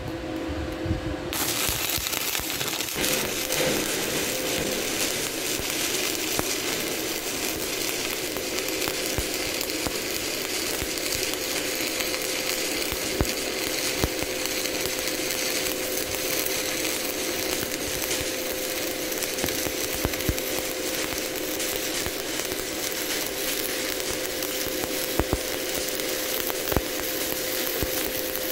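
Stick (shielded metal arc) welding arc at 110 amps, struck about a second in and then burning steadily: a continuous crackle and hiss with a steady hum and scattered spatter pops.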